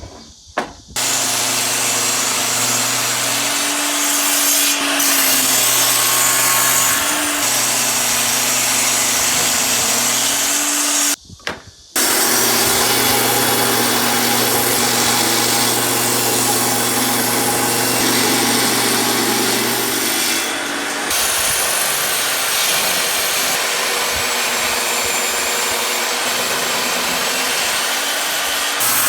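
Electric power tool working wood: a loud, steady motor noise that breaks off sharply twice, about a second in and again around eleven seconds in.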